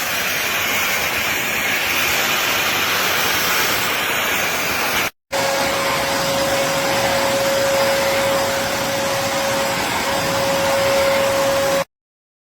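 Atrix VACBP10 backpack vacuum cleaner's motor running with a steady rushing whir. It drops out for an instant about five seconds in and returns with a steady whine on top, then cuts off abruptly near the end.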